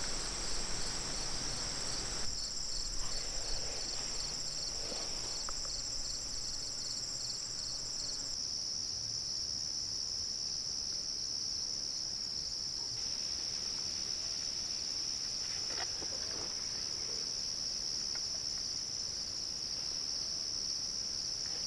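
Steady high-pitched trilling of an evening insect chorus. For the first eight seconds or so, a second insect chirps over it in a quick, even pulse, about three a second.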